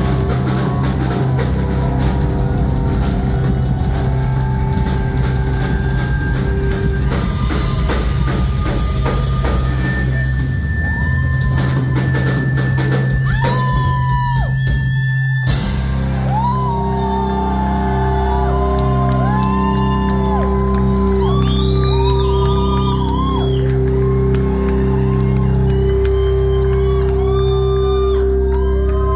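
Rock band playing live through a club PA, with loud drums, electric guitar and bass. About halfway through, the drumming stops and held notes ring on as the song ends, with whoops from the crowd over them.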